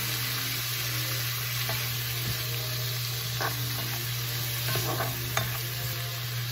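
Broccoli and spinach sizzling and steaming in a hot nonstick skillet after a splash of water, with a spatula stirring and a few light knocks against the pan around the middle. A steady low hum runs underneath.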